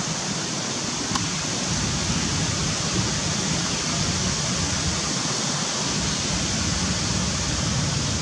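Steady outdoor rushing noise, even and unbroken, with one small click about a second in.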